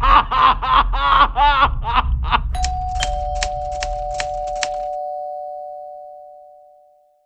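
A man screaming in short, repeated, wavering cries over a low rumble. About two and a half seconds in this gives way to a quick run of typewriter key clacks and a two-note chime that rings on and fades out.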